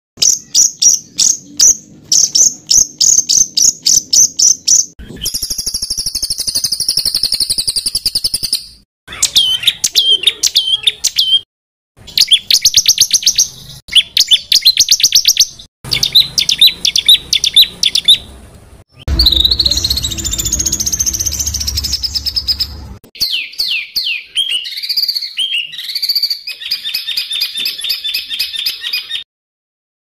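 Edited songbird-song training track (masteran): spliced segments of high-pitched song, mostly rapid runs of sharp repeated notes, several a second, mixed with buzzy trills and whistled phrases. Each segment cuts off abruptly into a brief silence. A low rumble sits under one segment about two-thirds of the way through.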